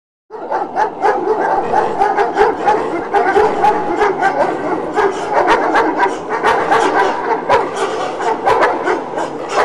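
Dogs barking and yipping, many short overlapping barks in quick succession with no music under them.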